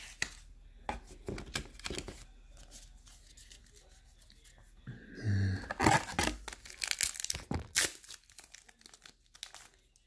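Foil trading-card booster pack crinkling as it is pulled from its cardboard display box and torn open. There are scattered rustles at first, then a denser run of sharp tearing and crinkling about six to eight seconds in.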